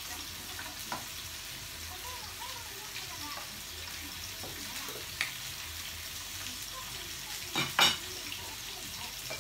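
Meat and vegetables sizzling steadily in a frying pan on a portable tabletop gas burner, with a few light utensil clicks and a sharp double knock about three-quarters of the way through.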